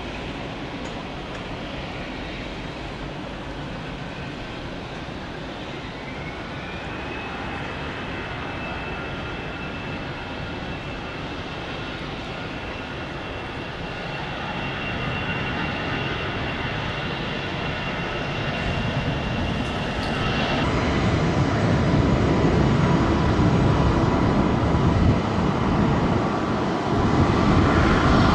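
Jet airliner's engines, a high whine that glides up in pitch about six seconds in and then holds, under a rumble that grows steadily louder as the aircraft comes closer, strongest in the last third.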